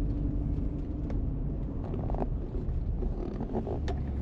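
Steady low rumble of a vehicle on the move, with a few faint clicks.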